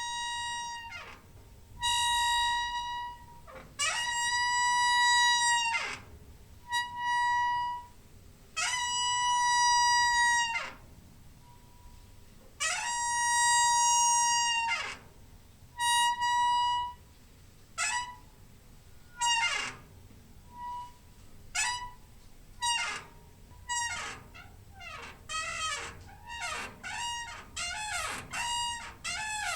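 A door hinge squeaking over and over. In the first half the squeaks are long and held at a steady pitch. From a little past the middle they turn short and quick, and their pitch slides.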